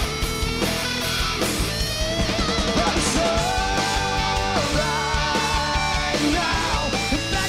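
Live rock band playing: distorted electric guitars and drums under a male lead vocal that holds long sung notes in the middle.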